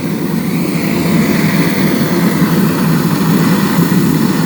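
Oil- and gas-fired aluminium melting furnace burning with its air blast on: a steady, loud rushing noise of forced air and flame, growing slightly louder about a second in.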